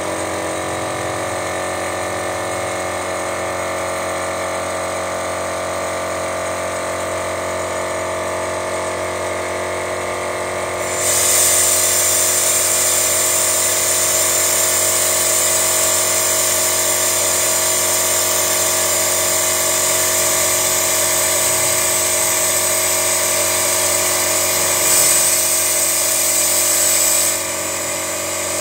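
Steady mechanical whine from the carbon-cleaning equipment's pump. About eleven seconds in, a loud high hiss joins it as cleaner is sprayed through a nozzle into the cylinder via the spark plug hole, and the hiss cuts off near the end.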